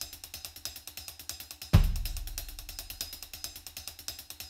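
Background music: a fast, steady hi-hat beat with one deep, heavy hit a little under two seconds in.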